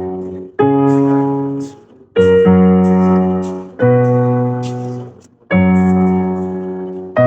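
Electronic keyboard in a piano voice: solfa scale notes played with left-hand chord notes beneath. A new chord is struck about every one and a half seconds and each is left to ring and fade.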